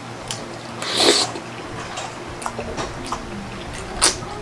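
Close-up eating sounds of spaghetti, with one loud slurp about a second in, then chewing and the light clicks of forks on plates, the sharpest near the end.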